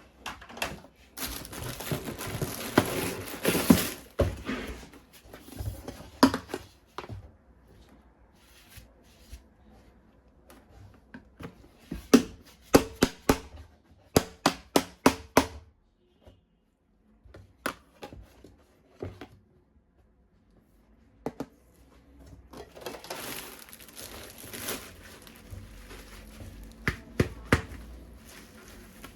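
Plastic packaging crinkling and tearing while toys are unpacked, broken by runs of sharp clicks and snaps, several in quick succession, from plastic parts being handled and clicked together.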